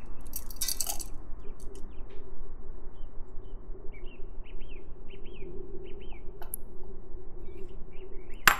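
Solid pieces of cocoa butter and shea butter clinking as they are tipped from a glass into the water-bath vessel, in the first second. Then a bird gives a run of short chirps over a steady low hum, and a single sharp click comes near the end.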